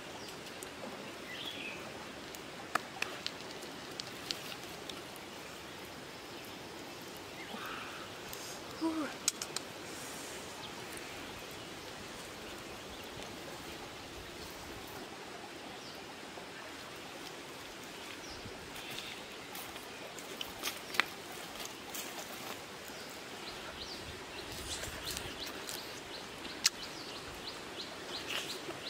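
Outdoor forest ambience: a steady hiss of background noise with short bird chirps now and then. Over it come a few sharp clicks and mouth smacks from eating by hand.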